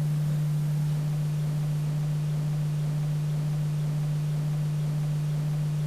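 Steady low electrical hum, a single held tone, over a faint hiss.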